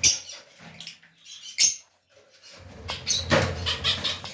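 Birds giving short, sharp, high-pitched squeaky calls, with scuffling and rustling movement.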